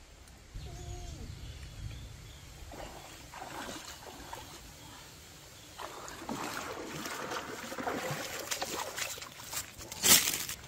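Water sloshing and splashing in irregular bursts that get busier from about three seconds in, with one loud splash near the end.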